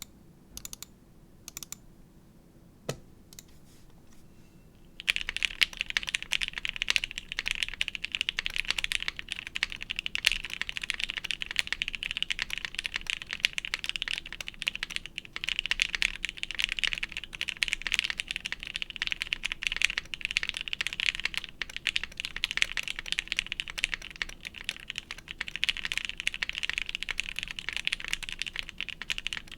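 Chimera65 mechanical keyboard with lubed Gateron Box Ink switches, a POM half plate and GMK keycaps, being typed on. A few separate key clicks come first, then fast continuous typing starts about five seconds in.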